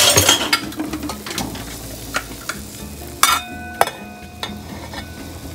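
Stainless steel cookware handled: a clatter near the start as a lid is set on a simmering pot, then a few sharp knocks on a steel bowl, two of them about three seconds in ringing like struck metal.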